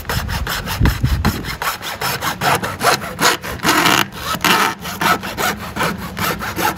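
Hacksaw cutting across a cardboard mailing tube near its end cap, in quick, even back-and-forth strokes.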